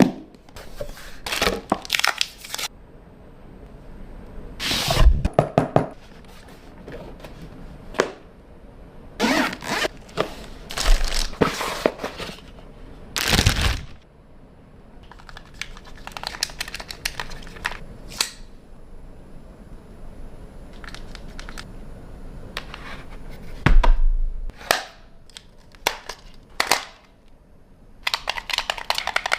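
Packaging being handled during an unboxing: cardboard and plastic torn, scraped and crinkled in irregular bursts.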